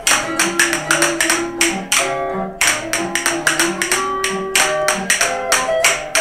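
Zither played in a lively tune, with a pair of wooden spoons clacked against a thigh in time: sharp wooden clicks several times a second over the plucked notes.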